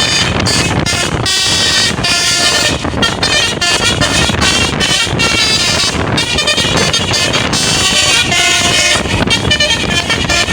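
Tour bus basuri telolet horn playing a tune of short, changing notes, with brief breaks between phrases.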